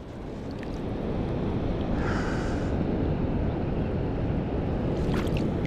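Wind noise on the microphone over the sea, a steady rushing that builds over the first second and then holds.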